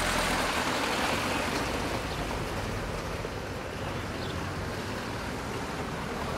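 Steady outdoor street noise, with a low hum that fades about half a second in.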